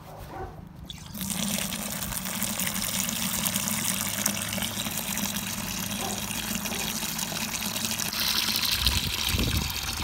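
Water running from an outdoor spigot into a plastic bucket of rabbit droppings, filling it to steep rabbit manure tea. The steady splashing starts about a second in and gets a little brighter near the end.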